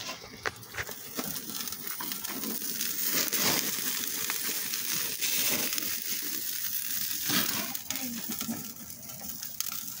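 Fire in a grill crackling and sizzling: a steady sizzle with scattered sharp crackles, louder in the middle.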